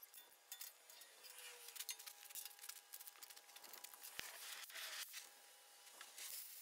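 Faint scattered clicks, taps and rustling from hands handling a cutting torch, its hoses and a steel plate, with a few sharper ticks.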